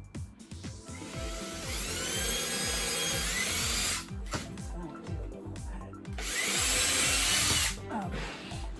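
Power drill run in two bursts, about three seconds and then under two seconds, its motor pitch sweeping as it speeds up, while holes are drilled overhead. Background music with a steady beat runs underneath.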